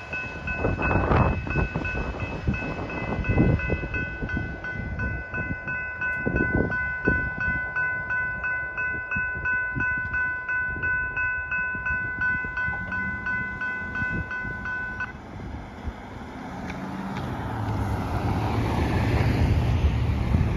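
Railroad crossing bell ringing in a steady pulse while the last tank cars of a freight train clatter away over the crossing. The bell stops abruptly about three quarters of the way through as the gates go up, leaving wind buffeting the microphone.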